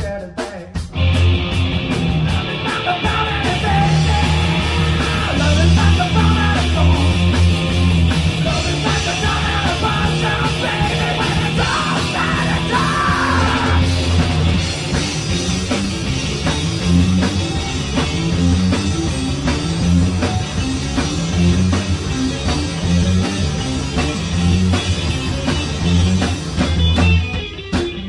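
Live rock band playing loud, with electric guitar, bass and a drum kit keeping a steady beat. The playing breaks off for a moment near the end, then starts again.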